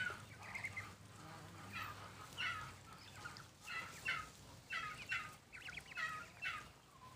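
Chickens calling: a string of about ten short, high calls, roughly two a second, beginning about two seconds in.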